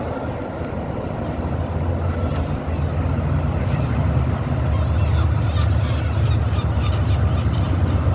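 Low diesel train engine rumble that grows steadily louder as a train approaches along the tracks.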